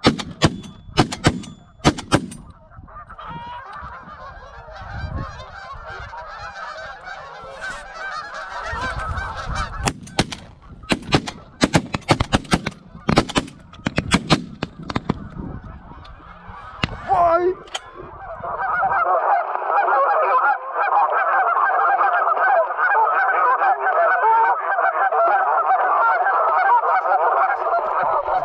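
Geese honking overhead, broken by shotgun shots: a quick series in the first two seconds and a longer run in the middle. In the last ten seconds a large flock's honking is dense and steady.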